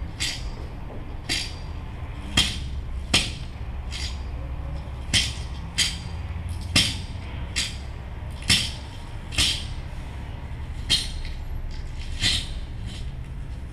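Amplified plant materials being plucked and tapped, heard through loudspeakers as irregular sharp clicks, about one and a half a second, each with a short bright ring, over a steady low amplifier hum.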